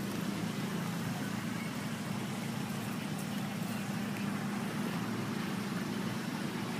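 A steady low mechanical hum, like an idling motor, unchanging over a constant hiss.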